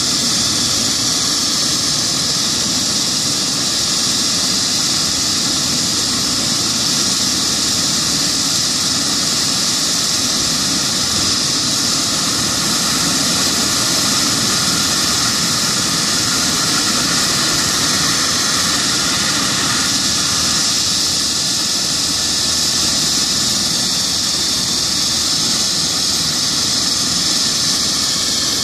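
Air ambulance helicopter's turbine engines running on the ground with the main rotor turning: a steady high whine over a loud hiss.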